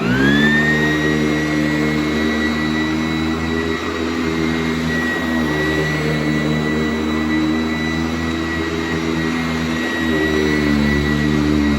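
Sanitaire S675 upright vacuum cleaner switched on, its motor spinning up within about a second to a steady high whine over a steady hum.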